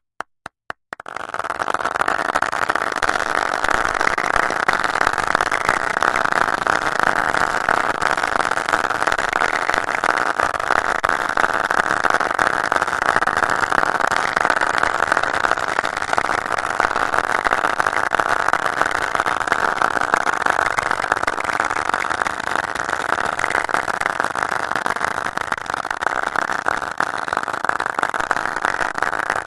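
A handful of single hand claps in the first second, then a dense, steady wash of overlapping claps like a crowd applauding: one person's clapping layered 100 times at slightly different intervals.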